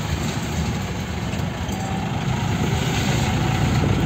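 Mahindra jeep's engine running steadily as the jeep drives slowly along a rough dirt lane, heard from inside the cab as a low drone that grows slightly louder near the end.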